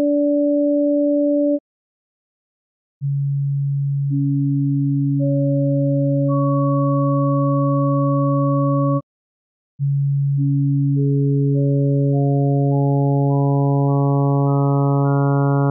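Synthesized pure sine tones added together step by step. First a tone and its octave sound together; after a short gap a low tone is joined by its octave, double octave and triple octave one at a time; after another short gap the same low tone is joined by each harmonic in turn, second through eighth, about every half second, building up a sawtooth wave.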